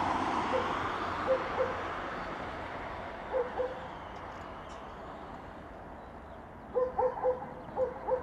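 Embraer 190's CF34 turbofans climbing away after takeoff, their roar fading steadily. Over it come short, high yips in pairs, then a quick run of them near the end, the loudest sounds here.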